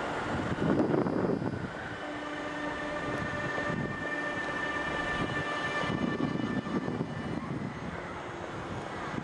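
Electric locomotive hauling double-deck coaches on the approach, with a rumble from the train. A whine of several steady tones from its traction equipment comes in about two seconds in and fades out around six seconds.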